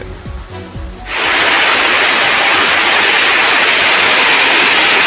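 Heavy rain pouring down, a loud steady hiss that cuts in abruptly about a second in.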